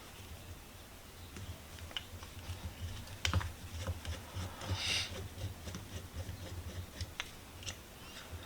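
Scattered light clicks and taps of small metal parts and hand tools handled on a workbench, with a brief scrape about five seconds in, over a low steady hum.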